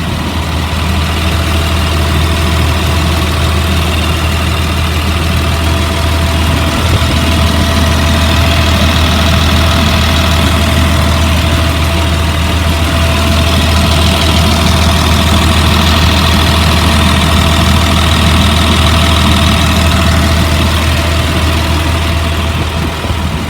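2004 Blue Bird All American school bus engine idling steadily with a low drone, warm after running about an hour and sounding smooth and healthy.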